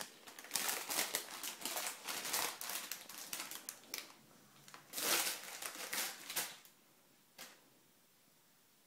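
Plastic packaging and shopping bags crinkling and rustling as a small child handles a packet of groceries, in quick irregular scrunches and clicks. It dies away about seven seconds in, with one last click.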